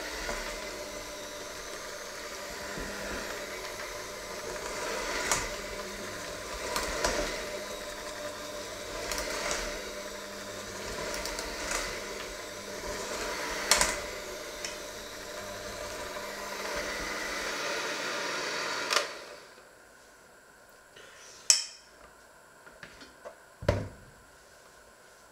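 Electric hand mixer with spiral dough hooks kneading a stiff, crumbly dough in a stainless steel bowl: the motor runs steadily, with occasional knocks of the hooks against the bowl. It switches off about 19 seconds in, and a couple of clunks follow as the mixer and bowl are set down.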